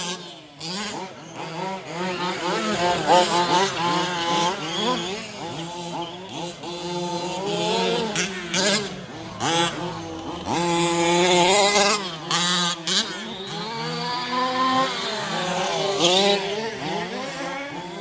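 1/5-scale 4WD RC race trucks running laps, their small engines revving up and easing off, several at once and overlapping.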